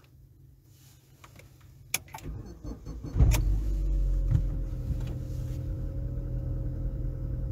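Opel Zafira 1.8 (Z18XE) four-cylinder petrol engine cranking briefly and catching with a loud burst about three seconds in, then idling steadily at the raised revs of a cold start.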